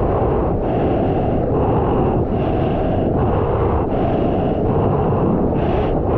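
Steady rush of water around a surfboard gliding through whitewater, with wind buffeting the action camera's microphone.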